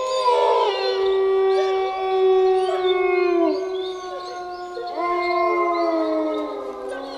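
Wolves howling in chorus: several long overlapping howls at different pitches, some held steady and some sliding down at their ends, with a new howl rising in about five seconds in.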